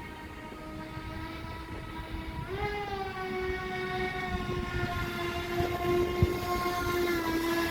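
Aquacraft Cajun Commander radio-controlled airboat's motor and air propeller whining at a steady pitch, stepping up higher as the throttle opens about two and a half seconds in and then holding, with a rough low rumble beneath.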